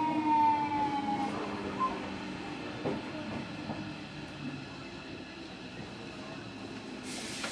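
Running sound from inside a JR Kyushu 305 series electric train's motor car: the VVVF inverter and permanent-magnet traction motors whine in a falling tone as the train slows under braking. The whine fades out about a second and a half in, leaving a quieter low rumble with a few wheel clicks.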